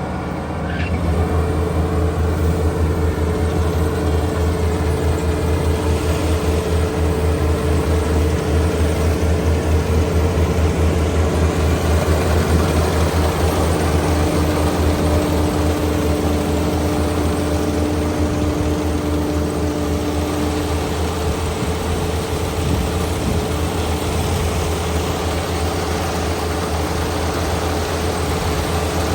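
Kubota ER572 combine harvester running at work, a steady low drone with a constant whine over it. It grows louder about a second in.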